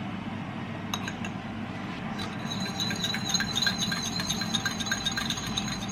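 A spoon stirring sauce in a small bowl: rapid light clinks against the bowl with a faint ringing, starting about two seconds in.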